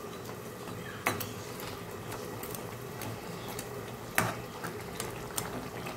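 Metal spatula stirring fish curry in a pan, scraping and knocking against the pan's sides, with two sharper clinks about a second in and about four seconds in.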